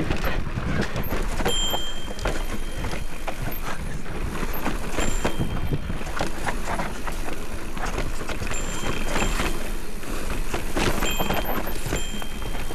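Specialized Turbo Levo e-mountain bike descending a rough trail: a dense, continuous clatter of tyres over dirt and rocks and the frame, chain and parts rattling over the bumps, with a brief high squeal now and then.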